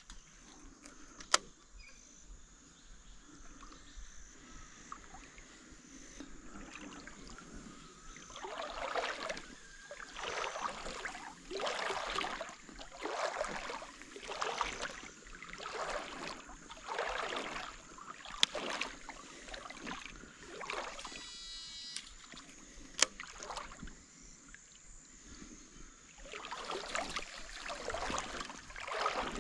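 Kayak paddle strokes swishing through the water, in a steady rhythm of about one every second and a half, with a few sharp knocks along the way.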